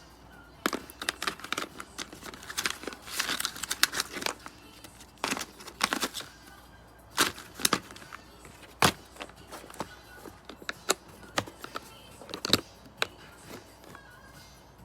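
Irregular clicks, knocks and crackly rustling of small hard objects being handled, in dense clusters through the first nine seconds and sparser after that.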